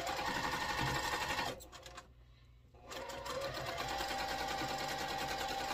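Electric home sewing machine stitching a seam through pieced quilt-block fabric. It runs steadily for about a second and a half, stops for about a second, then runs steadily again for nearly three seconds.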